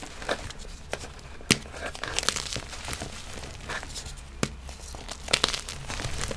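Gym chalk being crunched and crumbled: a scatter of sharp cracks and short crinkly, crumbling noises. The loudest crack comes about a second and a half in.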